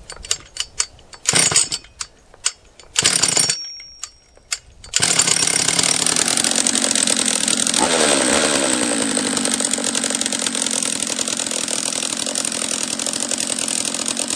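Husqvarna 44 two-stroke chainsaw being pull-started: a few short rattling pulls and knocks, then the engine catches about five seconds in and runs. Its note drops about three seconds after starting and it settles to a steady run.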